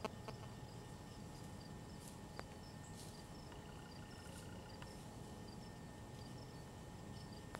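Quiet woodland ambience: a steady faint hiss with short high chirps repeating every half second or so, typical of insects or small birds, and one faint click about two and a half seconds in.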